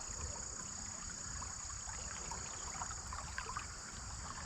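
Creek water trickling and babbling, with a steady high drone of crickets over it.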